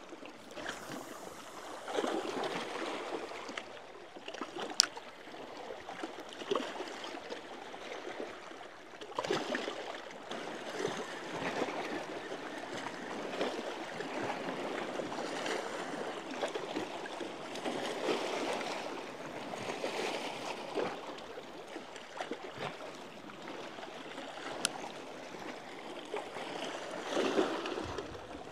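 Small waves lapping and splashing against the shoreline, swelling every couple of seconds, with a sharp click about five seconds in and another later on.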